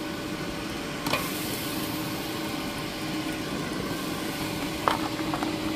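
Steady fan hum of a running air fryer, with a few light clicks of metal tongs on tofu and the tray about a second in and near the end.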